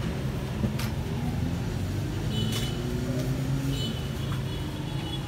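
Steady low rumble of motor traffic, with a few sharp clicks from the steel folding wheelchair frame as it is handled.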